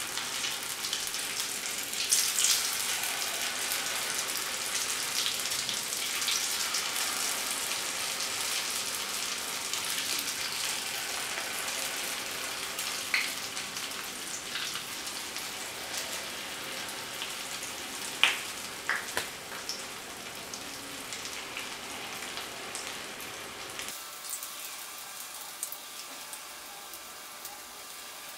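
Batter-coated raw jackfruit strips deep-frying in hot oil: a steady crackling sizzle that eases slowly, with a few sharp clicks.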